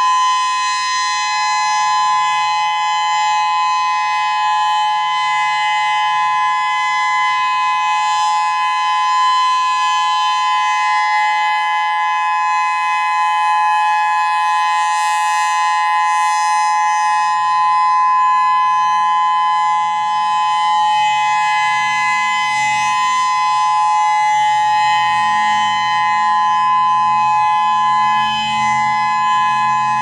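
Whelen 3016 electronic outdoor warning siren sounding a steady alert tone, a chord of two close pitches held without a break, while its rotating speaker array turns. The sound carries a strong echo off nearby grain elevators.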